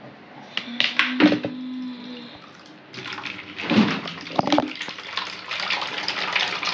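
A few sharp knocks of a vessel being handled about a second in, one leaving a short ringing hum. Then water splashes and sloshes for several seconds as water is put in with the washed cowpea leaves.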